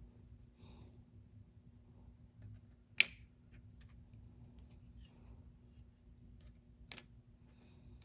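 Small metal clicks of needle-nose pliers working a C-clip onto the pin of a Lionel 397 coal loader's conveyor belt. There are faint ticks and two sharp clicks, the loudest about three seconds in and another near the end.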